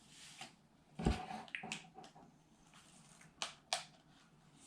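Handling noise from a Krytac Kriss Vector airsoft gun's polymer body as its bottom plate is worked open: a dull knock about a second in, then a few short sharp plastic clicks.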